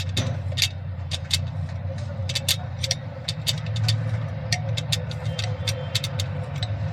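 A machine running with a steady low hum, with many sharp clicks at irregular intervals over it, a few each second.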